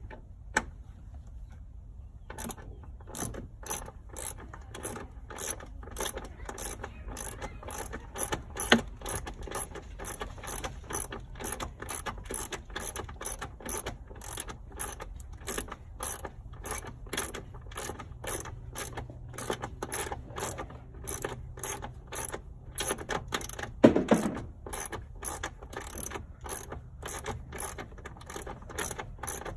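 Short hand ratchet with a 13mm socket and short extension clicking rapidly and steadily as it backs out the windshield-frame bolts, starting about two seconds in. A single louder clunk comes near the end.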